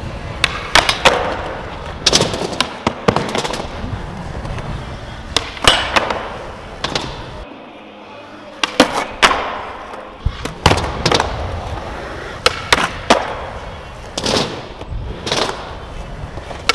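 Skateboard on a concrete floor: urethane wheels rolling, with repeated sharp cracks of the board popping and landing on its wheels. The rolling is quieter for a couple of seconds in the middle.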